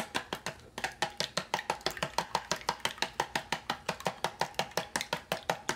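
Chopsticks beating eggs in a clear rectangular container, ticking against its sides in a quick, even rhythm of about six or seven clicks a second, with a brief pause just after the start.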